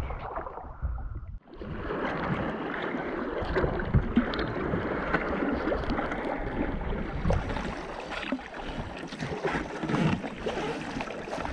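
Sea water rushing and splashing around a sea kayak's hull and paddle blades as it is paddled through ocean swell: a steady wash with small splashes throughout, after a brief drop about a second and a half in.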